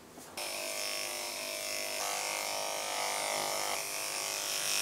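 Electric pet clippers buzzing steadily as they shave a long-haired cat's coat; the buzz starts just after the beginning and shifts in tone about two seconds in and again a little later.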